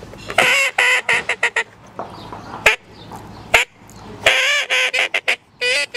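A duck call blown by mouth, giving two runs of quacks, each a longer first note followed by several quicker, shorter ones. There are a couple of sharp clicks between the runs.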